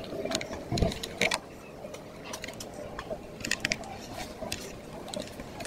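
Small screwdriver turning screws out of a plastic solar light housing: irregular light clicks and scrapes of the metal tip on the screw heads and plastic, with a couple of louder knocks about a second in.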